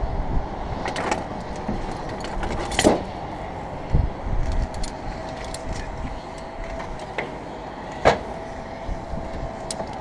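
A low, gusting rumble of wind on the microphone, with sharp clicks and knocks of climbing hardware and the aluminium window frame several times, loudest about three seconds in and about eight seconds in. A faint steady tone sounds throughout.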